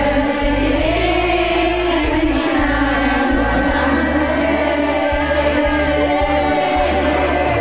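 Many voices singing together over a karaoke backing track, the singers' separate phone recordings mixed into one group performance.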